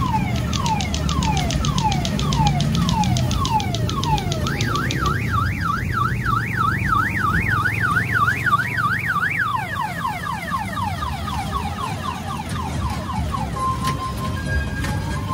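Electronic siren alarm cycling through its tones. First it makes falling sweeps about twice a second, then a fast up-and-down warble, then quicker falling sweeps, and near the end short steady beeps. A low rumble runs underneath.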